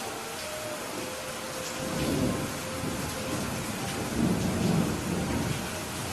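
Steady rain hissing, with two low rumbles of thunder swelling up about two seconds in and again around four to five seconds in.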